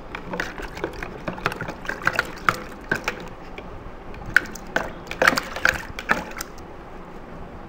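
A metal utensil stirring and poking pieces of panela in water inside a plastic jug, with irregular clinks and taps against the jug and some sloshing. The taps are thickest about five to six and a half seconds in, then stop.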